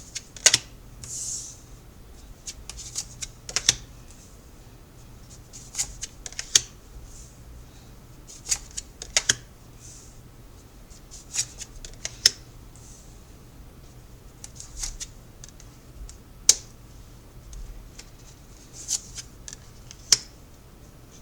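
Tarot cards being shuffled and laid out on a table: irregular sharp snaps and clicks of cards, with a few short sliding rustles.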